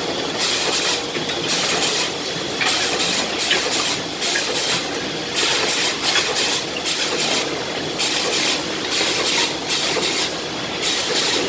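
Kuang Yung defect-cutting (optimizing cross-cut) saw running, with a steady motor hum under repeated cuts through wooden boards, about one cut every second or so.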